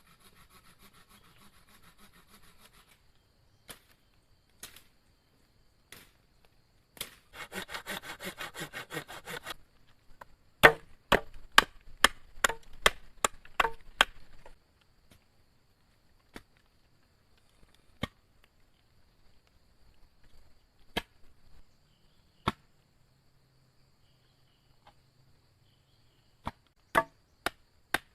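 Wood being cut by hand: two stretches of rapid, even sawing strokes, then a quick run of sharp chopping blows, followed by single blows spaced several seconds apart and a short cluster of blows near the end.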